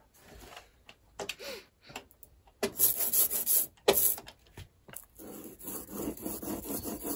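Rubber brayer rolled back and forth through tacky yellow ochre lino-printing ink on a glass slab, making a rasping, sticky hiss that starts about two and a half seconds in. Near the end the brayer rolls the ink onto a carved lino block, a softer, steadier rasp.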